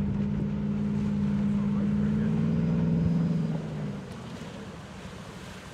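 V8 engine of a hot-rod personal watercraft running at speed on the water, a steady note that drops away about four seconds in, leaving wind and water noise.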